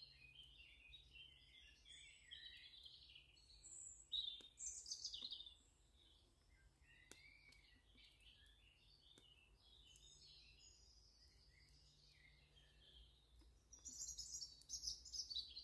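Faint woodland birdsong: several small birds chirping and warbling, with louder calls about four seconds in and again near the end, and a few faint clicks.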